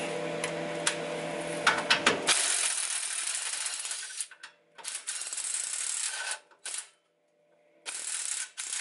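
Cordless DeWalt impact wrench working a track bar bolt: a steady rapid hammering rattle at first, then several shorter bursts that stop and start.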